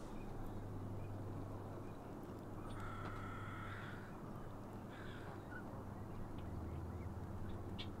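A crow cawing faintly: one drawn-out caw about three seconds in and a shorter one about two seconds later, over a steady low hum.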